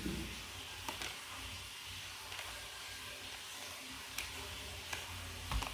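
Quiet room noise with a steady faint hiss and a few faint clicks or taps.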